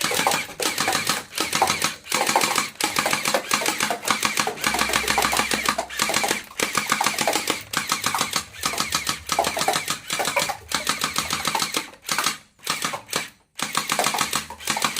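Toy M416 rifle firing in long rapid bursts, a fast clatter with short breaks between bursts, the breaks longer near the end.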